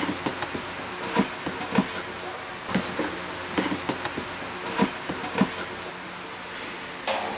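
Large cardboard box being handled and cut open with scissors: irregular knocks, scrapes and snips, about a dozen over several seconds, with a denser burst near the end.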